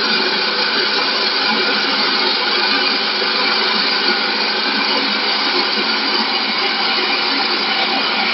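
Double-cutter CNC wood lathe running, spinning a wooden spindle against its cutter: steady, unbroken whirring machine noise with a whine of several steady pitches.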